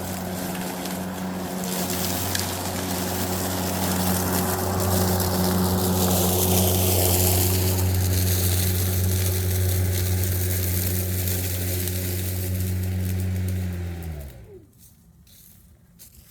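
Walk-behind lawn mower running steadily through dry leaves, its spinning blade giving a steady hum with a rushing, crunching hash over it. About fourteen seconds in, the mower is shut off and the blade spins down with a falling pitch until it stops.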